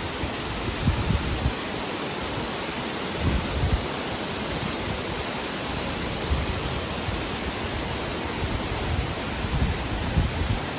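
Steady rush of water from a waterfall and its flowing stream, with a few brief low rumbles.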